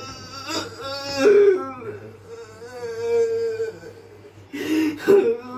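A man wailing and moaning in distress: several long, drawn-out cries that waver in pitch, the longest held for about a second and a half midway, with sobbing catches between them.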